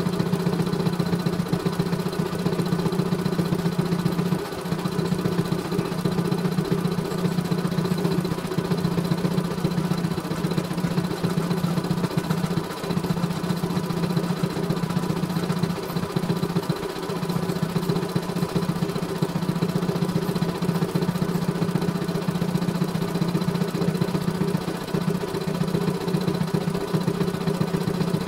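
CNY E900 computerized embroidery machine stitching: a steady, fast needle chatter over the hum of its motor, briefly dropping a few times.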